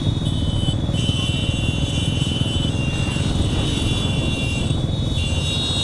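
A running vehicle's steady low rumble, with a steady high-pitched whine above it.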